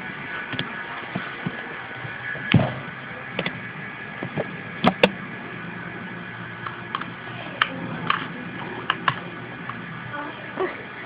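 Scattered clicks and knocks of a hand handling a plastic model electric locomotive on metal track. Two sharp clicks come close together about halfway through, over a steady hum.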